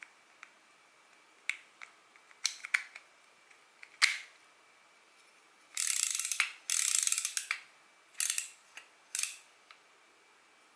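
Daiwa spinning reel being worked by hand: a few sharp clicks, then about six seconds in the handle is cranked in two short spins of rapid gear-and-pawl clicking, followed by two briefer spins.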